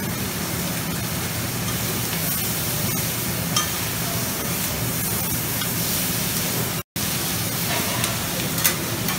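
Shrimp, mushrooms, onions and noodles sizzling steadily on a large flat-top Mongolian barbecue griddle, with metal spatulas clinking against the steel a few times, most sharply about three and a half seconds in and again near the end.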